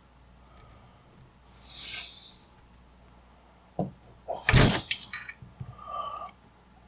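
Bench handling sounds while working on an old tube receiver's chassis: a soft hiss near two seconds in, then a click and a loud clunk about four and a half seconds in, followed by a few lighter clicks.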